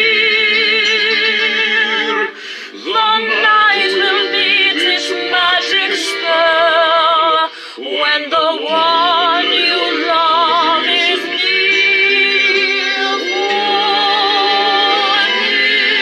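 A woman singing long held notes with a strong vibrato, with music behind her. She breaks off briefly twice.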